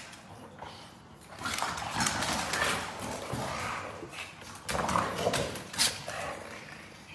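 Dogs grunting and vocalising as two of them play-wrestle on a tile floor, with a few sharp clicks through it.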